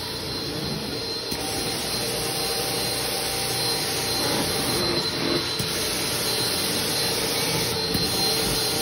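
Carpet extractor's vacuum motor running steadily while the extraction wand is drawn across wet carpet, pulling up the cleaning water: an even rushing whine with a thin high tone over it.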